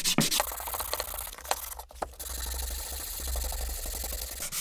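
Sandpaper rubbed by hand back and forth over a softwood board, the grit scratching on the wood as it smooths the chiselled surface. The strokes are short and separate at first, then run into a steadier rub, with a low hum underneath.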